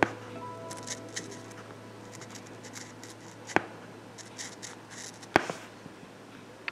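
Felt-tip marker rubbing in short scratchy strokes on a nylon-stocking-covered ball, with three sharp clicks spaced through it.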